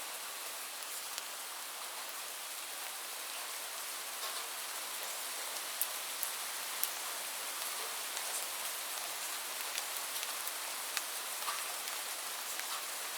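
Heavy rain falling steadily in a dense hiss, with individual drops ticking sharply here and there on a hard surface.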